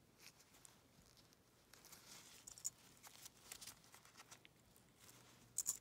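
Faint rustling of plastic fly-screen mesh being handled, with scattered small clicks as little metal binder clips are fastened along its edge.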